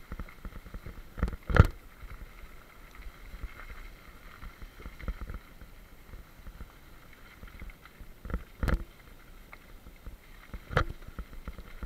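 Bicycle rolling fast down a gravel track: a steady rumble of tyres on the loose surface, with several sharp knocks and rattles as the bike jolts over bumps.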